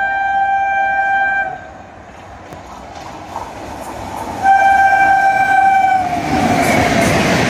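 Locomotive horn of a Rajdhani Express train, a steady chord held until about a second and a half in. The oncoming train's noise then grows, and a second long horn blast comes about four and a half seconds in, its pitch dropping as the locomotive passes. The loud, steady noise of the coaches going by at speed follows.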